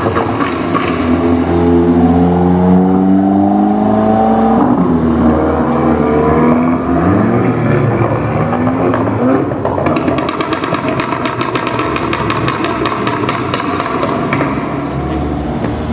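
Tuned Audi S3 sedan's turbocharged four-cylinder, through a Milltek exhaust, accelerating hard with the pitch rising. About ten seconds in it lifts off into a rapid string of exhaust crackles and pops on the overrun, which lasts several seconds.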